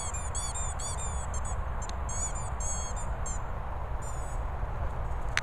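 A small bird singing a fast run of short, high chirps, about four a second, for the first three and a half seconds, then a brief second run about four seconds in. Underneath is a steady wind rumble on the microphone, and a single sharp click comes near the end.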